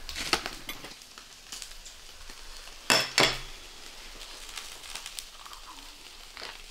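Eel grilling over charcoal on a wire mesh grill, its juices sizzling, with scattered small pops. Two sharp clicks about three seconds in are the loudest sounds.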